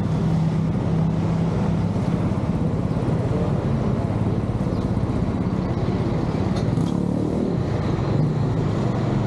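A motor vehicle's engine running steadily on the move: a continuous low hum under a steady rush of noise.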